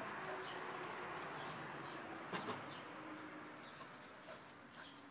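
Faint bird calls, a few short high chirps over a quiet steady hiss, with a couple of soft taps about two and a half seconds in.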